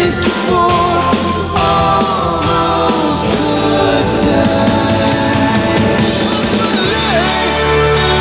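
Rock song playing: a man singing over a full band with drums and guitar.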